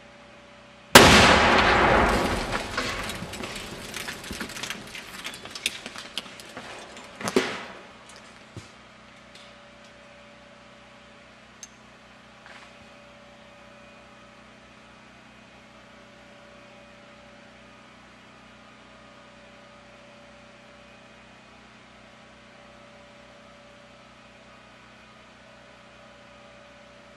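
AquaRam Micro Tactical Disrupter firing into a car trunk: one sudden loud blast that dies away over several seconds with many crackling clicks, then a second sharp bang about six seconds later and a few faint ticks.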